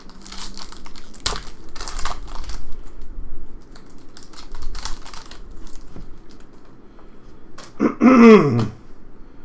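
Trading cards being handled and flipped through by hand: an irregular run of rustles and light clicks. A brief voice sound comes near the end.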